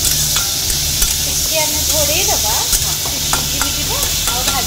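Chopped vegetables frying in hot mustard oil in a metal kadai. They sizzle steadily while a flat metal spatula stirs and scrapes them, with repeated clicks of the spatula against the pan.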